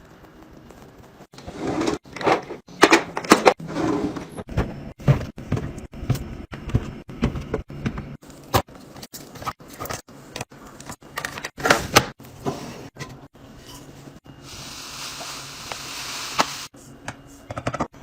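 Containers and packaging being handled and set down in quick, edited cuts: many taps, clicks and knocks, with a steady hiss for about two seconds near the end.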